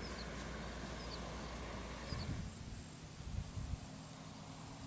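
Insects chirping in an even, fast pulse, about five a second, starting about two seconds in, over a low rumble from the distant RV-6A's engine as it taxis.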